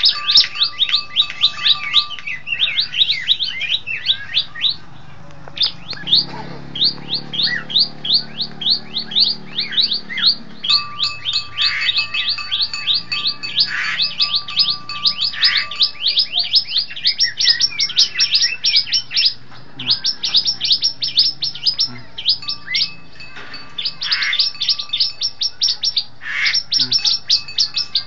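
A caged ciblek (bar-winged prinia) calls in long, fast series of high, downward-sweeping notes, several a second, broken by short pauses.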